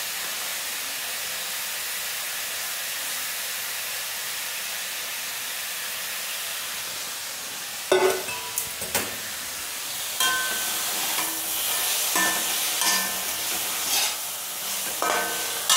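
Vegetables sizzling steadily in a steel kadhai on a gas flame, with boiled noodles and their water being poured through a steel colander at the start. A few sharp metal clanks come about eight seconds in. From about ten seconds on, a steel spatula scrapes and clinks against the kadhai in short ringing strokes as the vegetables are stirred.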